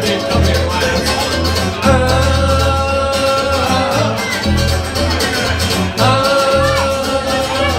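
Live acoustic string band playing at full volume, with strummed acoustic guitar, banjo and a strong bass line, and voices singing held notes twice.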